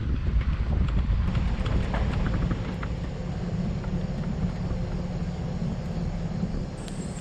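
Wind buffeting the microphone outdoors, a steady low rumble with a faint hum under it and a few light clicks.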